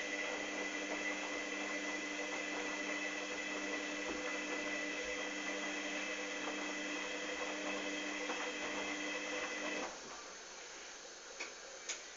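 Hoover Dynamic DYN 8144 D washing machine running with a steady mechanical hum made of several constant tones. The hum cuts off suddenly about ten seconds in, leaving a faint hiss and a couple of light clicks near the end.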